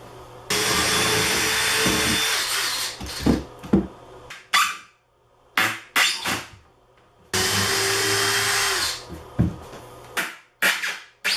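A drill with a screwdriver bit driving screws into 3/4-inch MDF panels: two runs of the motor, the first about two seconds long and a second, shorter one later, with short knocks and clicks in between.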